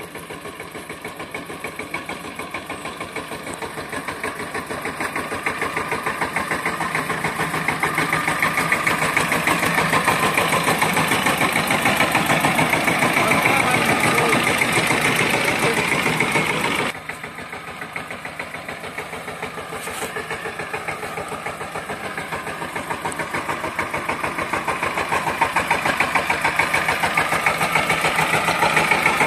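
FORTE 18 hp mini-tractor engine running with a rapid, even firing beat as the tractor drives a trailer through mud, growing louder as it comes closer. The sound drops abruptly a little past halfway, then builds again as the tractor approaches.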